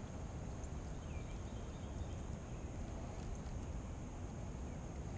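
Outdoor ambience: a steady low rumble and hiss, with a few short, faint bird chirps.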